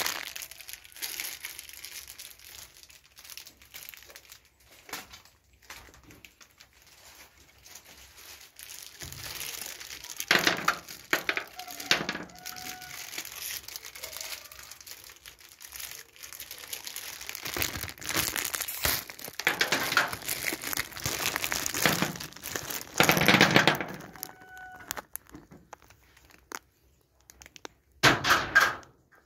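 A plastic bag crinkling and rustling as it is handled, in irregular bursts, with scattered knocks and scrapes.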